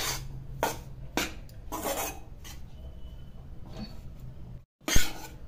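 Metal spatula scraping and knocking around a heavy-bottomed kadhai while stirring wheat flour roasting in ghee, about two strokes a second. A short gap near the end, then one louder knock on the pan.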